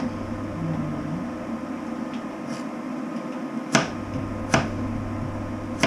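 A few sharp kitchen knocks, two of them about three quarters of a second apart near four seconds in, over a steady low hum that grows louder at the first of them.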